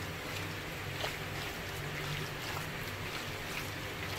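Raw chicken pieces being mixed by hand with ginger-garlic paste in a plastic bowl: a few faint soft wet squelches over a steady low hum and hiss.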